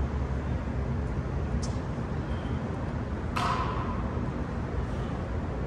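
Steady low rumble of road traffic, with one brief, brighter noise about three and a half seconds in that fades within half a second.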